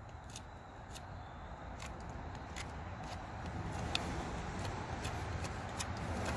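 Multitool knife blade scraping and shaving the end of a green-wood stick: a string of short, irregular scratchy clicks. Under it a low background rumble slowly grows louder.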